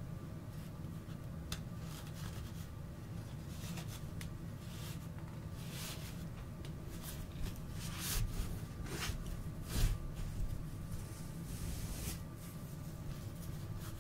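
Soft rustling of a cloth drawstring bag as a card deck is slid inside and the jute cord is drawn to close it, with louder rustles in the second half.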